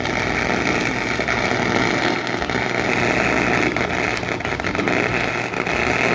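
Wire-feed (MIG-style) welder arc burning continuously as a bead is laid, a loud, steady crackle without a break.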